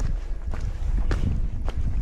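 Footsteps of a hiker walking at a steady pace on a hill path, with wind buffeting the microphone in a loud low rumble.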